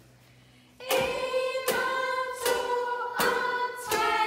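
After a brief near-silent pause, a woman sings a children's song, strumming a ukulele in a steady beat of about one strum every three-quarters of a second, with children's voices joining in.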